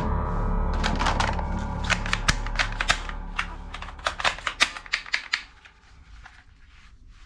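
A toy gun clicking: a quick, irregular series of sharp clicks, a few a second, stopping about five and a half seconds in. Background music fades out under it.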